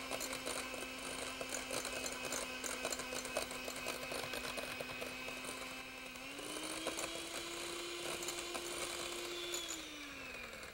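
Electric hand mixer running, its beaters ticking against a glass bowl as they beat egg yolks with mustard, lemon juice and vinegar, the preliminary beating for homemade mayonnaise. The motor's steady hum rises in pitch about six seconds in, holds, then slides back down near the end.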